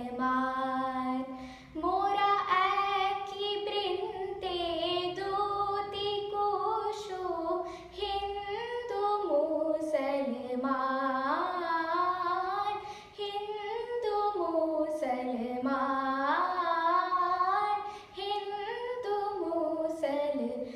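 A child singing solo, one voice carrying a gliding melody in long held phrases. Brief breaks between phrases come about 2, 8, 13 and 18 seconds in.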